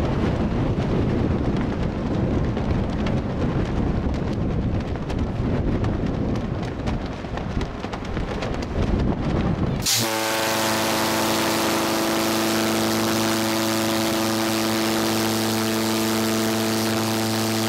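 Wind buffeting the microphone on a cruise ship's open deck. About ten seconds in, the ship's horn sounds one long, deep, steady blast that stops near the end.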